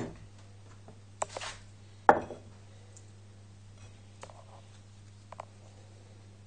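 Knocks and clunks of a butternut squash half and a glass bowl being handled on a wooden cutting board. The loudest comes about two seconds in, with softer clicks later, over a steady low hum.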